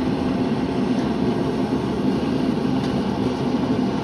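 Gas-fired forge running, a loud steady rushing noise with no break.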